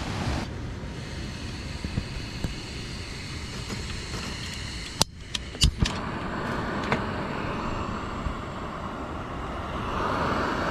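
Steady wash of surf, then a few sharp clicks and knocks about halfway as a Gasmate gas-canister camp stove is handled. Its burner then hisses, louder near the end as the flame burns under the pot.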